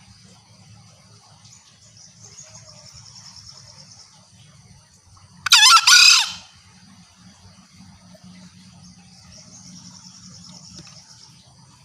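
A green junglefowl gives one loud call of about a second in two quick parts, near the middle. It is the hen's call used as a lure to draw in males. Behind it runs a steady high insect buzz that swells twice.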